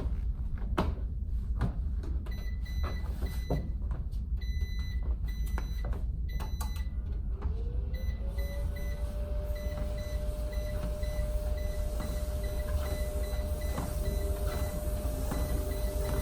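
Treadmill running with a steady low motor hum while its control-panel keys beep again and again as the speed is raised. About seven seconds in, a motor whine rises in pitch and then holds steady, with scattered knocks throughout.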